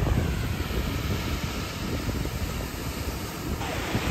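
Wind rumbling on the microphone over the wash of surf on a beach; the sound turns brighter and hissier near the end.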